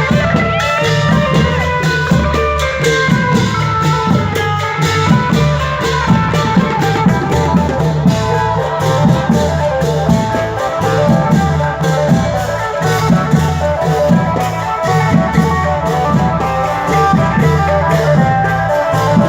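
Live Isan dance music: a plucked-string melody over a drum kit keeping a steady, even beat.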